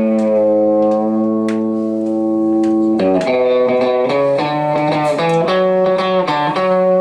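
Live country band music led by guitar: a chord held for about three seconds, then a run of quicker chord changes.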